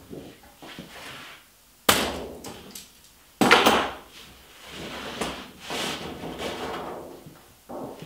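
Thin aluminum roofing sheet being handled after creasing: it flexes with two sudden sharp pops about two and three and a half seconds in, followed by softer rubbing and rattling of the sheet as it is pressed and moved.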